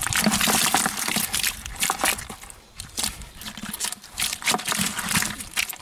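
A hand rummaging through a bucket of live, wet fish, mostly climbing perch and snakeheads, with an irregular mix of wet slaps, rustles and crackles as the fish shift and flap.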